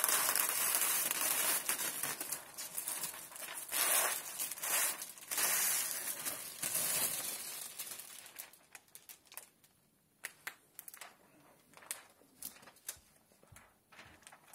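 Clear plastic release liner from window film crinkling and rustling as it is pulled off and bunched up by hand. The sound is dense for the first eight seconds or so, then thins to scattered small crackles and ticks.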